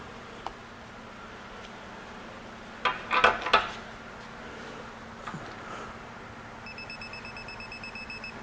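A socket clacks onto a nut as the wrench is set on it about three seconds in; then, as the nut is pulled up, a Proto electronic torque wrench gives a rapid high beeping for about a second and a half, its alert that the 200 ft-lb set torque has been reached.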